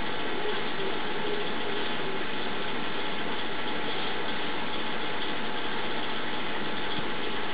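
Steady mechanical hum over a hiss, with a few faint steady whining tones, unchanging throughout.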